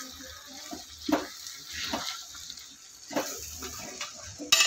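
Ladle stirring and scraping thick, wet mutton masala for biryani in an aluminium pot: a few separate strokes about a second apart, then a sharp clatter near the end.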